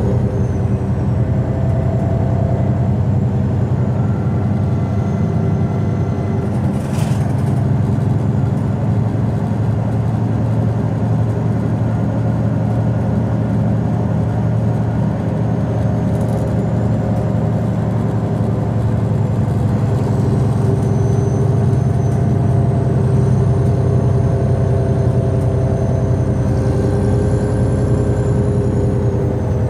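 MAN D2866 inline-six diesel of a Neoplan Centroliner city bus running, heard inside the rear of the passenger cabin as a steady drone with a faint high whine. It grows a little louder from about twenty seconds in and eases off near the end. A brief click comes about seven seconds in, and a fainter one later.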